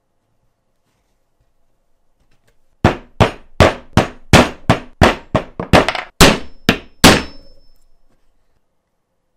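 Wooden mallet tapping neodymium disc magnets into press-fit pockets in a polycarbonate plate. About a dozen sharp knocks, roughly three a second, starting about three seconds in and lasting some four seconds.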